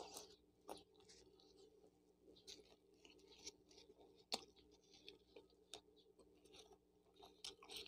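Faint close-up mouth sounds of chewing a cheese shawarma wrap: irregular soft wet smacks and clicks, with one sharper click about four seconds in.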